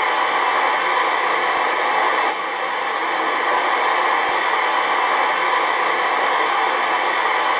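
Steady, loud rushing noise with faint steady tones in it, the audio of a video clip playing back from the editing timeline.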